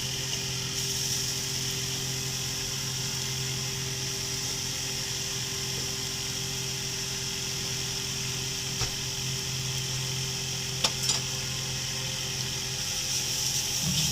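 Grated carrots cooking in a pan on the stove: a steady hiss and hum, with a few light clicks of the stirring spoon against the pan about nine and eleven seconds in.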